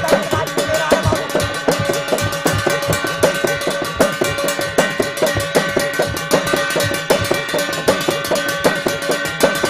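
Jagar ritual drumming: a hudka hourglass drum beaten in a fast, even rhythm of about three strokes a second, with a steady ringing tone behind it.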